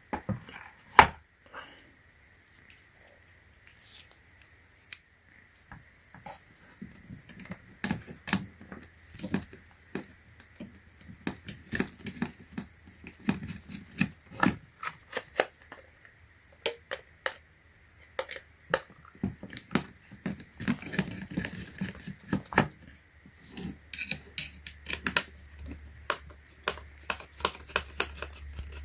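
Irregular clicks, taps and small rattles of a battery charger's plastic case, screws and screwdriver being handled while it is taken apart. A low steady hum comes in near the end.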